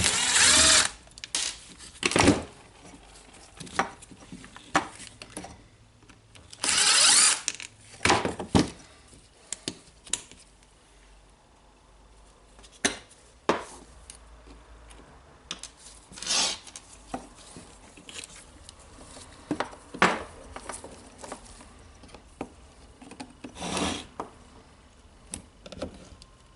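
Hands and small tools working on the switch of a cordless rotary hammer: scattered clicks and scrapes of plastic and metal parts, with several short noisy bursts about a second long.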